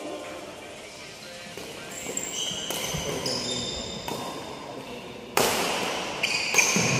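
Badminton rackets striking the shuttlecock in a rally, about four sharp cracks echoing in a large hall, the loudest about five seconds in. Short high squeaks of court shoes on the wooden floor come between the hits.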